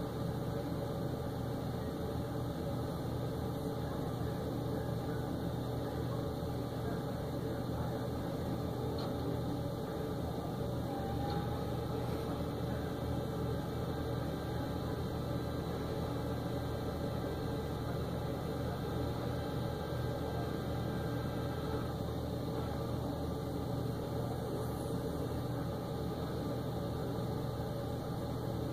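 Flatbed tow truck's engine idling steadily with a low, even hum while its bed is tilted down for loading.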